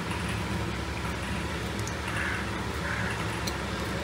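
A steady low hum and hiss, with faint soft sounds about two and three seconds in as cooking oil is poured into an aluminium pressure cooker.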